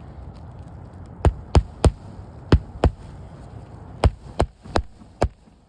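Hammer driving roofing nails through an asphalt 3-tab shingle: about nine sharp strikes in short runs of two or three blows.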